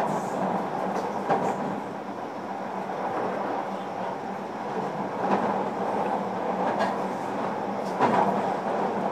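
JR Kyushu 305 series electric train running along the track, heard from inside its motor car MoHa 305-1: a steady rumble of wheels and running gear with a faint steady hum, broken by a few clacks.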